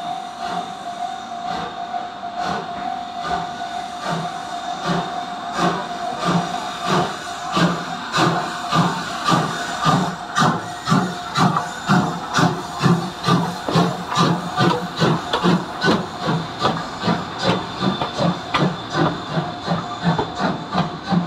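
Chichibu Railway's C58 363 steam locomotive pulling away from a stand. Steam hisses over a steady tone at first. From about four seconds in come exhaust chuffs that grow stronger and quicken to about two to three a second as the train gathers speed.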